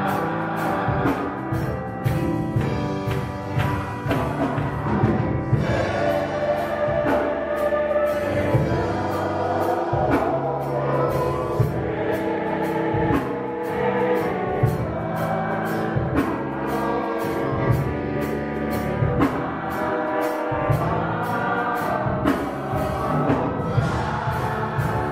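Gospel music: a group of voices singing over instrumental accompaniment with a steady drum beat.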